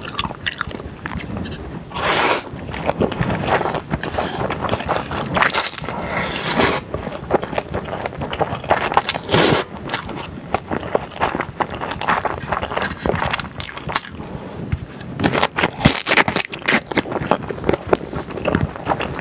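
Close-miked eating of saucy stir-fried yakisoba with glass noodles: wet chewing, lip smacks and mouth clicks, broken by a few louder, hissing slurps of noodles.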